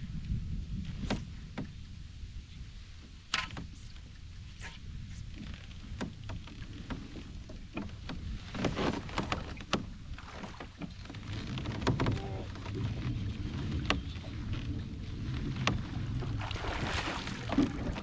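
Low wind rumble on the microphone with scattered clicks and knocks from the kayak and fishing tackle, then water splashing near the end as a hooked bass thrashes at the surface.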